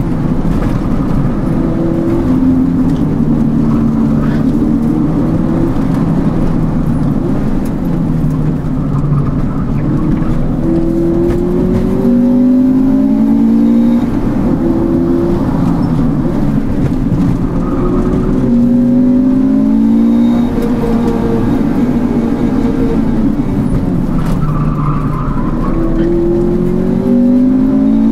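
Honda Integra DC's engine heard from inside the cabin under hard driving, its pitch climbing and dropping over and over as the revs rise and fall through the gears and corners, over a steady rush of tyre and road noise.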